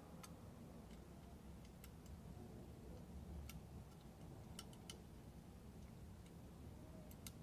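Faint, scattered light clicks at irregular intervals: small metal parts of a door handle and lock being handled and fitted back together.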